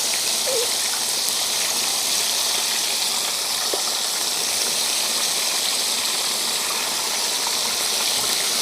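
Crucian carp frying in hot oil in a pan: a steady, even sizzle.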